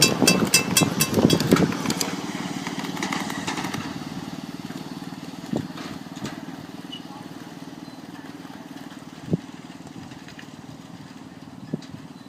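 The small engine of a ride-on miniature train running, loud at first with rapid, even clicking, then fading steadily as the train moves away. A couple of single sharp clicks follow.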